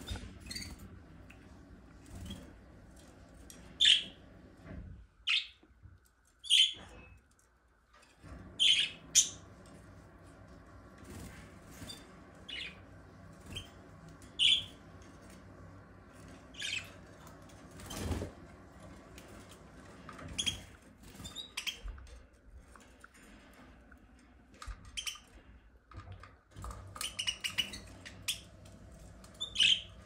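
Pet budgerigars chirping in their cage: short, high single chirps every second or two, coming quicker near the end, with a sharp knock about two-thirds of the way through.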